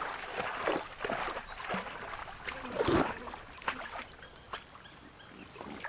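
Crocodiles splashing and thrashing in shallow river water as they fight over a caught bee-eater, with uneven slaps and churning; the loudest splash comes about three seconds in, then the water settles to softer lapping.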